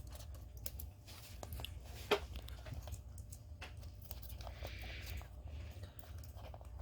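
Quiet hand work on a laptop's LCD connector: small plastic clicks and scrapes, one sharper click about two seconds in, and a soft rasp of adhesive tape being peeled back around the middle.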